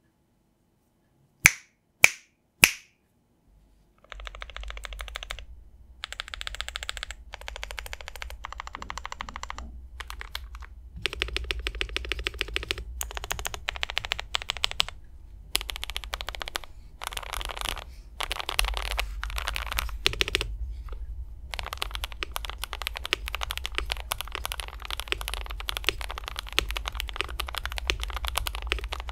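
Typing on a GMMK Pro mechanical keyboard with Boba linear thock switches and GMK 8008 keycaps: fast runs of keystrokes in bursts with short pauses, starting about four seconds in. Just before, three loud sharp clicks about half a second apart.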